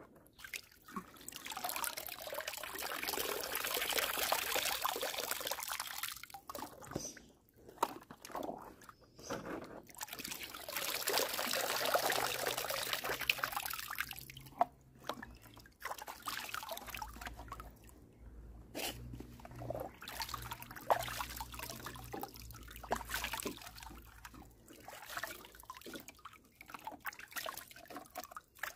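Muddy water pouring and dripping off a plastic toy truck as it is lifted out of a shallow paddling pool, with splashing as it is dipped back in. Two longer spells of pouring, then scattered drips and small splashes in the second half.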